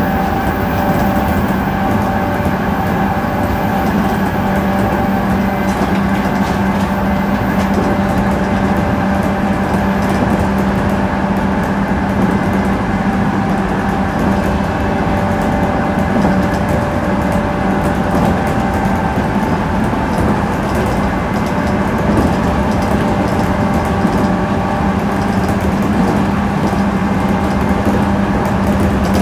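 Steady hum of onboard equipment over a constant rushing noise inside a JR Central 211 series 5000-subseries electric train car, its pitch unchanging throughout.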